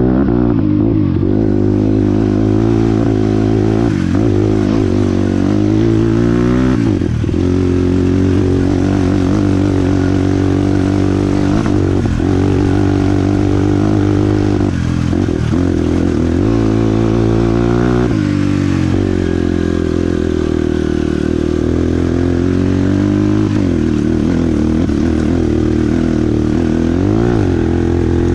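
Motorcycle engine running under way. Its pitch dips briefly and climbs back about half a dozen times as the revs change.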